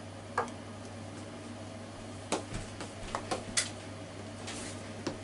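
A steady low hum with a handful of light clicks and taps, spread unevenly, as an instant miso soup packet and a soup bowl are handled.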